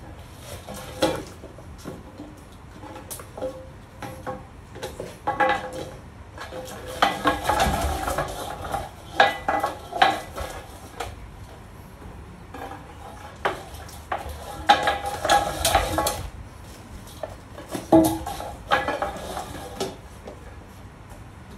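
A French bulldog nosing and shoving its metal food bowl across a wooden floor: repeated bursts of clattering and scraping, with quieter gaps between.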